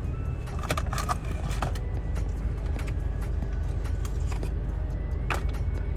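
A car's engine and road rumble heard from inside the cabin while driving, steady and low, with a few short clicks and knocks about a second in and again near the end.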